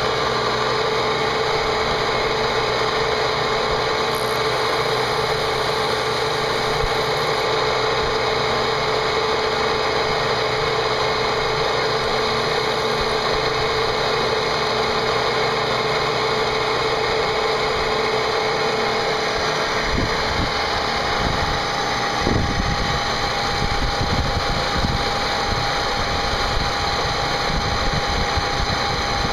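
CNC machine cutting a part: a steady spindle and cutter whine with several held tones. From about 20 seconds in, a rougher low noise joins and the pitch of the whine shifts a little.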